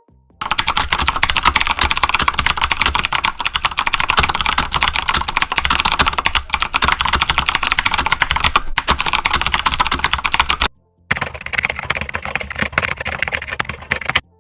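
Computer keyboard typing sound effect: rapid key clicks for about ten seconds, a brief stop, then a second, slightly quieter stretch of typing for about three seconds.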